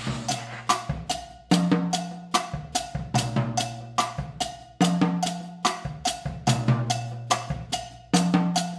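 Sonor Vintage Series drum kit playing a steady cha-cha groove: cross-stick clicks on the snare with low tom notes ringing, in a pattern that repeats about every three seconds.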